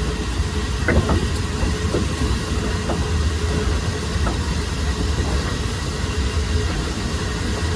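Steady low rumble of a slow-moving train heard from on board, with a few faint knocks of the wheels running over the track.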